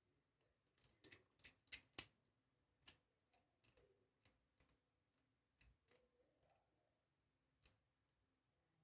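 Faint clicks of a Syneco luggage combination lock's number wheels being turned by hand: a quick run of about five clicks between one and two seconds in, then single clicks scattered through the rest.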